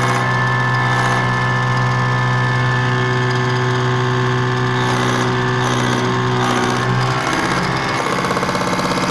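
Diesel fuel-injection pump running on its test bench: a steady mechanical hum with a strong low tone. About seven seconds in, the low tone breaks off and the running sound shifts in pitch.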